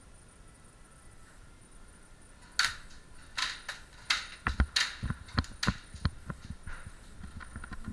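Irregular run of sharp cracks and knocks from close-quarters airsoft play, starting about two and a half seconds in: airsoft gun shots mixed with knocks and thuds.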